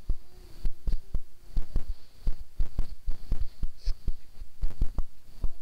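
Irregular soft thumps and knocks, a few a second, as plastic toy elephant figures are handled and bumped on the carpet close to a hand-held camera. A faint steady high whine runs underneath.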